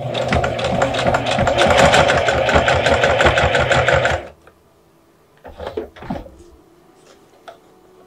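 Singer 4432 sewing machine stitching a hem at speed, the needle strokes coming in a rapid even rhythm, then stopping abruptly about four seconds in. After it stops, only faint handling noises and a few light clicks remain.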